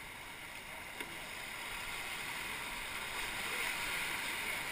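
Rushing whitewater of a river rapid, a steady hiss that grows gradually louder as the raft drifts closer, with a single sharp tap about a second in.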